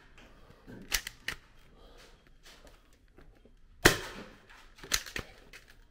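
Nerf blasters firing: a few sharp snaps, two about a second in, the loudest just before the four-second mark with a short echo, and two more about a second after it.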